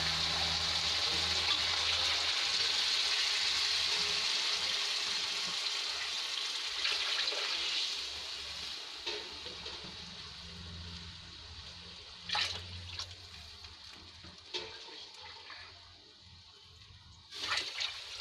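Water poured over rice fried in hot oil in a kadhai, sizzling and bubbling with a steady hiss that fades away over the second half as the water takes the heat of the oil. A few sharp knocks near the end.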